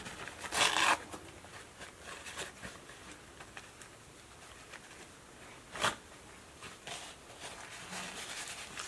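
Makeup items being handled at close range: a brief rustle about half a second in, a single sharp click about six seconds in, and faint small clicks and taps in between.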